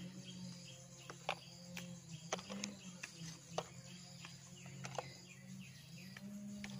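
Scattered small snaps and rustles of chilli stalks and leaves as ghost chillies are plucked by hand, over faint insect and bird chirping and a low steady hum.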